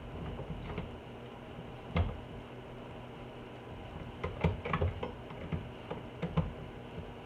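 Light metal clicks and taps of an Allen wrench and bolts being started by hand into a Jeep door hinge: one sharper click about two seconds in, then a cluster of quick clicks from about four to six and a half seconds.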